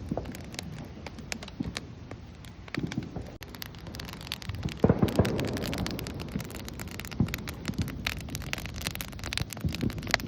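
Wood fire crackling with many sharp pops, and one louder boom about five seconds in that fades away over a second or so.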